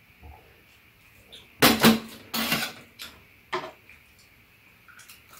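Tableware clattering on a metal tray table during a meal: a few sharp clinks and knocks of utensils and dishes, loudest and densest about one and a half to two and a half seconds in, with a couple more after.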